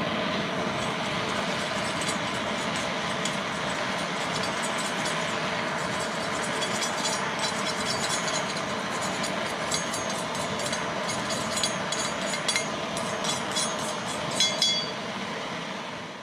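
Handheld propane torch burning with a steady rushing hiss while a stainless exhaust tube is held in the flame. Sharp crackles and clicks come through more and more in the second half. The sound fades out at the very end.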